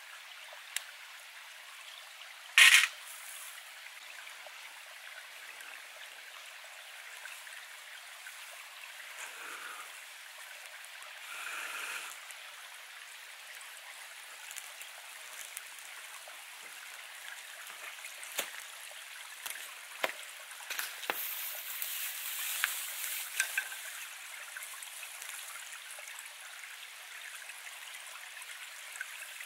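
Small creek trickling steadily, with a few sharp clicks of a steel striker hitting flint near the start and one much louder sharp crack about three seconds in. Later, scattered snaps and a soft rushing rise as the smoking tinder bundle catches flame.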